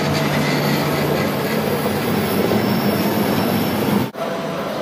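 RegioJet passenger coaches rolling past on the track as an electric locomotive hauls the train away: a steady, loud rumble of wheels on rail. About four seconds in the sound cuts off abruptly to a quieter, steady station background.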